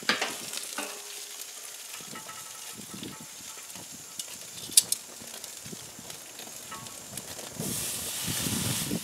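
Grill lid lifting open, a sharp clack of metal tongs about five seconds in, then raw chicken sizzling on the hot grill grate, the sizzle starting near the end.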